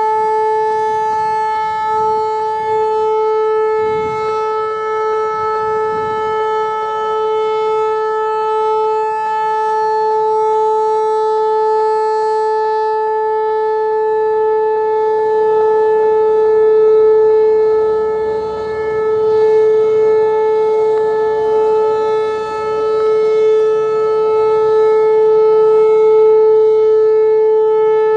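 Whelen Vortex R-4 outdoor warning siren sounding a loud, steady single-pitch tone, its level swelling and dipping slightly. The tone clips, which the uploader puts down to the unit's 2020-era controller.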